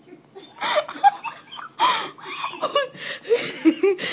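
Laughter in several short bursts.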